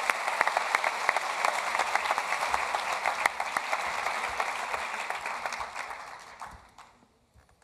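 A large audience applauding in an auditorium. The clapping thins out and dies away about six to seven seconds in.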